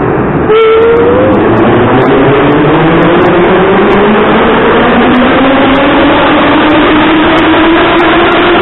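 Vintage Soviet-era blue metro train pulling away from the platform. Its traction motors set up a whine that climbs steadily in pitch as it gathers speed, over heavy running noise that comes in loudly about half a second in.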